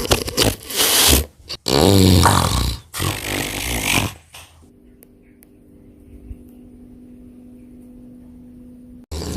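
Loud, rough snoring for about the first four seconds, then a pause in which only a faint steady hum is heard, and the snoring starts again near the end.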